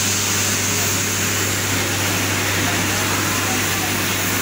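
Standing steam locomotive hissing steadily as it lets off steam, over a constant low hum.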